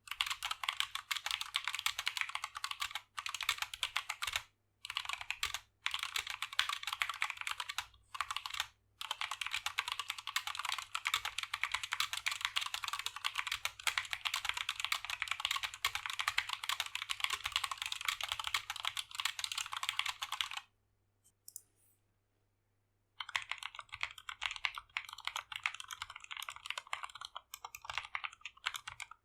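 Continuous fast typing on an SK61 mechanical keyboard with lubed Gateron Optical Brown tactile switches under XDA keycaps, keys clacking in a dense run. The stock plate-mounted stabilizers on the long keys tick. There are a few brief breaks and a pause of about two seconds some twenty seconds in, then the typing resumes.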